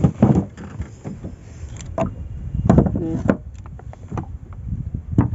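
Irregular knocks and thuds on a wooden boat's planking while a fishing longline is handled over the side, with a steady low rumble underneath.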